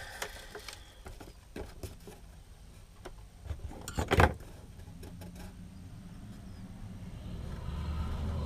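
Handling noise of a wooden box being worked on by hand: scattered light clicks and taps, with a short cluster of loud knocks about four seconds in.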